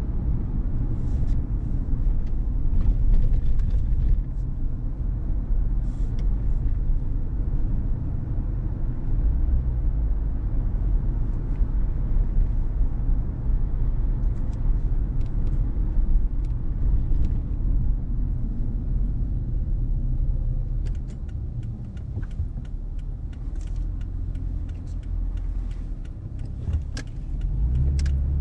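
Car driving on city streets: steady low road and engine rumble, with scattered light clicks and ticks, more of them over the last several seconds.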